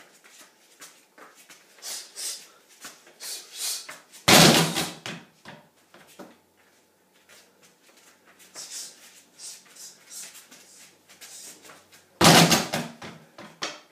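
Two loud strikes landing on a hanging heavy bag, about eight seconds apart, the second from a jumping kick. Softer short scuffs come between them.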